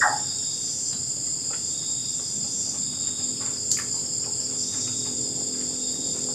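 Night insects calling in a steady, shrill, high-pitched chorus on two pitches, like a police siren, with a few faint light clicks.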